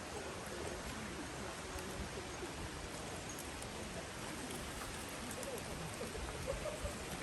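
Steady rush of a mountain stream's flowing water, with faint distant voices.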